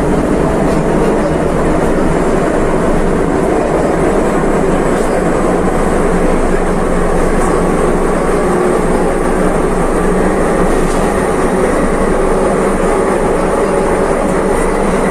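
CAF-built metro train of Istanbul's M4 line running at speed: steady rumble of wheels on track with a faint high whine, heard from inside the car.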